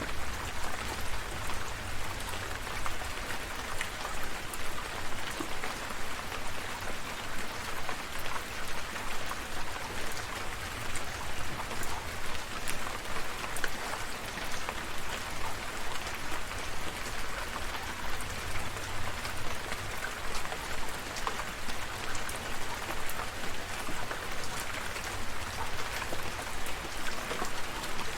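Steady rain falling, with many individual drops pattering close by over a continuous hiss and a low rumble underneath.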